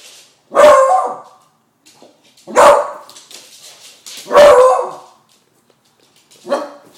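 A 10-month-old beagle barking four times, loud single barks about two seconds apart: alarm barks at balloons she is afraid of.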